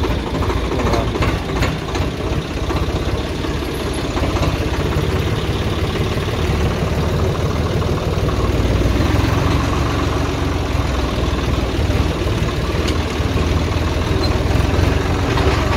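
Swaraj 855 tractor's three-cylinder diesel engine running steadily while driving along and towing a laser land leveler. A few sharp knocks come about a second in.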